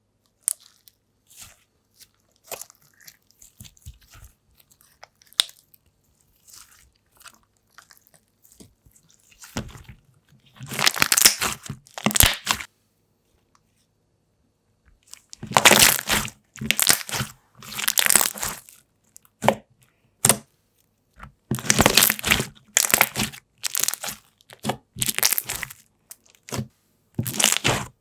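Thick, crunchy slime being squeezed and pressed, crackling and popping in bursts about a second long, with only faint clicks for the first several seconds.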